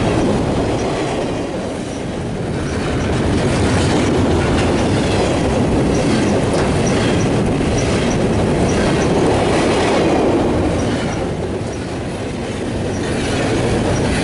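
BNSF double-stack intermodal freight train rolling past at close range, its steel wheels clicking over the rail joints with a steady rumble. The level dips slightly about two seconds in and again near the end, then swells again.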